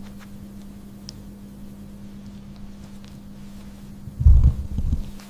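A steady low hum with a few faint clicks, and a loud low thud and rumble a little after four seconds in.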